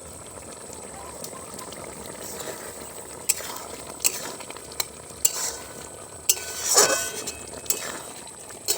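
A metal ladle stirring a simmering curry in a cooking pot: a steady hiss, with sharp scrapes and clinks against the pot, about one a second, from about three seconds in.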